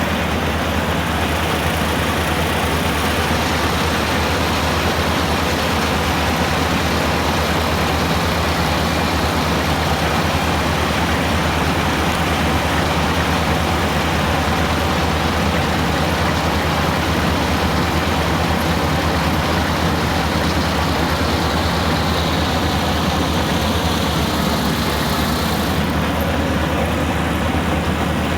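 Kubota farm machine's engine running steadily at an even speed, with a low, constant hum.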